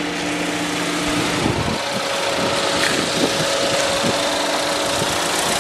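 2013 GMC Terrain's 2.4-litre four-cylinder engine idling smoothly under the open hood, with an even rushing hiss over a steady hum.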